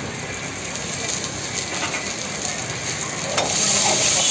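Chopped onion and capsicum sizzling in a hot wok over a gas burner. About three and a half seconds in, the sizzle grows louder as a metal ladle starts stirring and scraping the wok.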